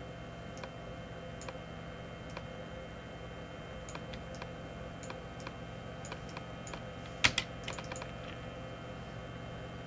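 Computer keyboard clicks: faint single keystrokes about once a second, then a quick run of louder keystrokes about seven seconds in, over a faint steady hum.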